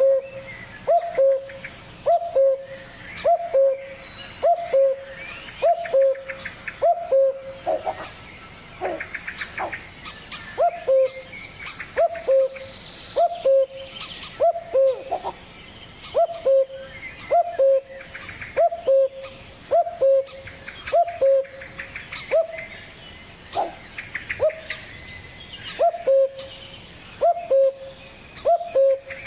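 Birdsong: one bird gives a short low hooting note over and over, about every 0.7 s, each note dipping slightly in pitch. Higher chirps and trills from other birds sound over it.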